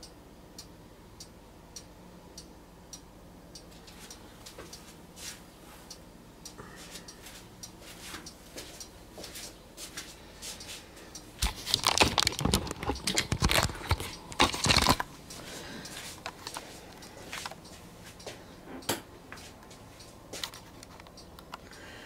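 Camera being handled and moved: a cluster of knocks and rubbing from about twelve to fifteen seconds in, over faint scattered ticks.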